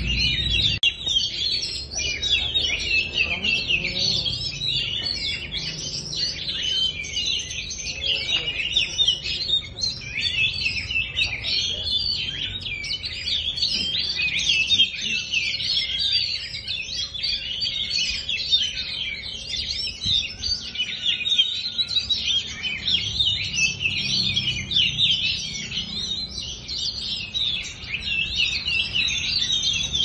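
Oriental magpie-robins singing without a break: a dense stream of quick, varied chirps and whistles, several birds overlapping and answering one another.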